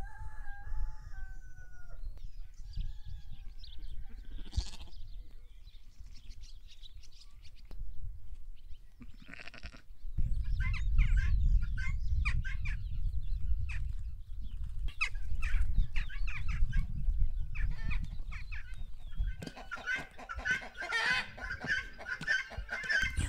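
Farmyard animal sounds: lambs bleating, with scattered bird chirps. A low rumble runs through the middle part, and hens cluck steadily near the end.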